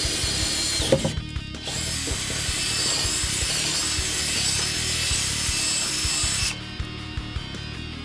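Cordless drill with a twist bit boring through a car's sheet-steel floor pan. It runs briefly, pauses about a second in, then drills steadily for about five seconds and stops. Background music plays underneath.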